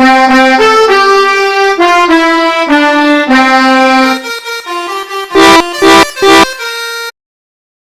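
Pianika (melodica) playing the telolet Basuri bus-horn tune: a quick run of reedy notes, then softer notes broken by three short loud blasts. It cuts off suddenly about seven seconds in.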